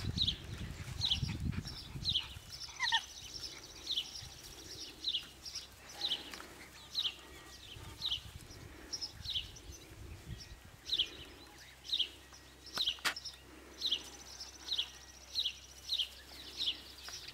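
A steady run of short, high-pitched chirping calls, each falling quickly in pitch, repeated about once or twice a second.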